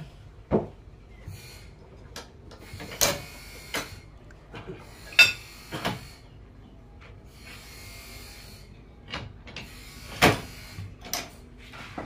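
Scattered wooden knocks and thumps as a large log is rolled and shifted by hand on a bandsaw sawmill's carriage, about half a dozen in all at uneven intervals, the loudest a little past five seconds and around ten seconds. The saw blade is not cutting.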